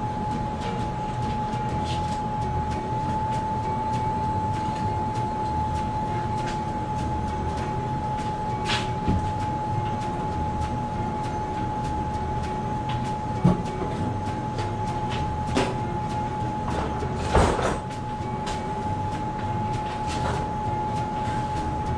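Fresh-air handling unit (PAU) running steadily with a constant high whine over a low machine hum, with a few sharp knocks and clanks, the loudest about halfway through and another a few seconds later.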